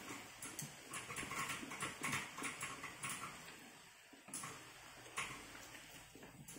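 A person chewing a mouthful of fish noodle soup close to the microphone: a string of short, soft mouth clicks and smacks, several a second, with a brief lull about four seconds in.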